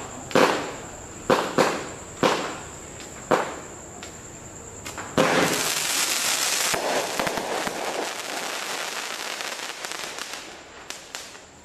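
Fisherman 'Zeus' fireworks cake firing: a string of sharp bangs from shots bursting overhead in the first few seconds. About five seconds in, a loud rush of hissing and crackling breaks out as a volley of sparking tails goes up, then thins out into scattered crackles and a few last pops.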